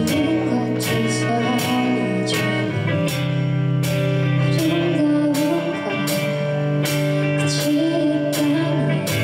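Live rock band playing: a woman sings the lead melody over electric guitars, bass guitar and keyboard, with drums keeping a steady beat.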